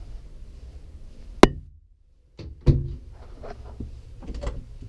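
Cabinet or interior doors in a travel trailer knocking shut. There is a sharp bang about a second and a half in, then after a brief drop-out a second thump, followed by several lighter clicks and knocks.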